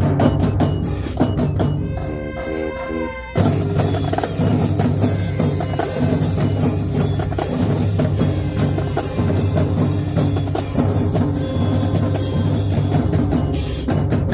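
Marching band playing: a drumline beats out a steady rhythm over sustained low brass. About two seconds in, the horns hold a chord, and then the full band and drums come back in loudly at about three and a half seconds.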